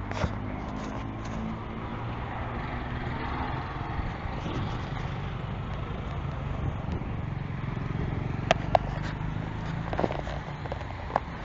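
Steady low rumble of road traffic, with a few short sharp clicks in the last few seconds.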